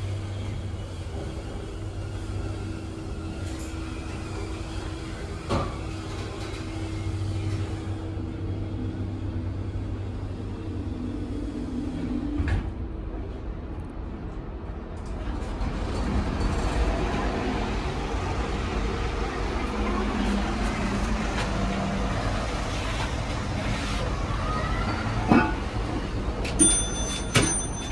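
Heights glass street elevator car running with a steady hum as it travels, then stopping with a clunk about halfway through. After that, louder, busier subway-station noise takes over, and near the end the car's call buttons click and beep.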